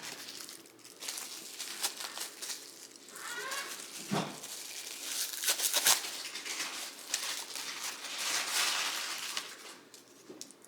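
Plastic packaging crinkling and rustling as it is handled and opened, with a couple of sharp clicks about 4 and 6 seconds in.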